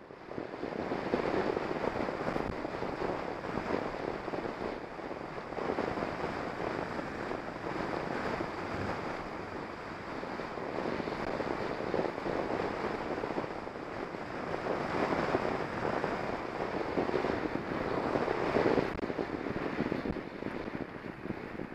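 Wind rushing over a bike-mounted action camera's microphone as a bicycle rides along a wet road, rising and falling with the ride, with the hiss of tyres on the wet tarmac underneath.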